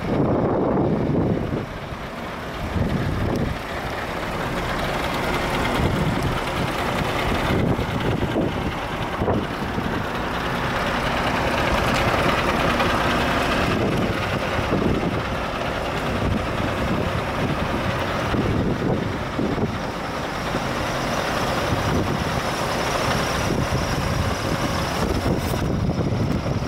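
Scania R730's 16-litre V8 diesel idling steadily.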